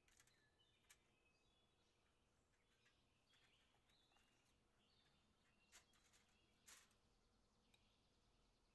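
Near silence: faint room tone with a few soft clicks and brief faint chirps.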